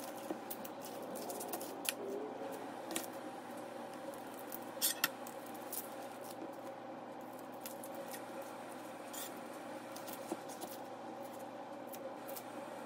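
Kitchen knife peeling and trimming an onion on a plastic cutting board: scattered small clicks and scrapes of the blade and the papery onion skin, over a steady hum.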